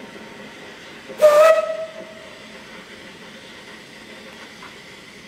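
Steam locomotive's whistle giving one short blast, about half a second long, about a second in, a clear pitched note with a hissing edge that trails off briefly. Steady background noise continues around it.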